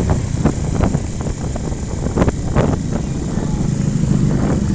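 Motor vehicle engines running, likely motorbikes, as a steady low rumble with many short sharp knocks scattered through it.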